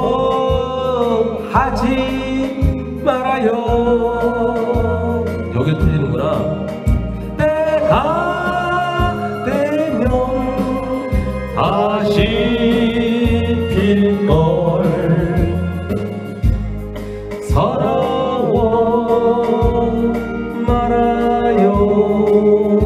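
A man singing into a microphone over a karaoke machine's backing track, with regular bass notes under the melody.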